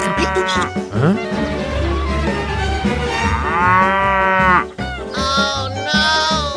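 Cattle mooing: drawn-out moos, the longest about three seconds in, over background music.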